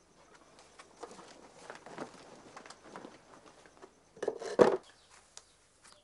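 Faint scattered taps and rustling, with a louder short knock or thud about four and a half seconds in.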